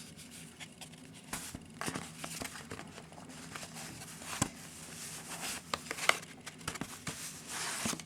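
Shrink-wrapped CD package being handled: the plastic wrap crinkles, with scattered light clicks and taps.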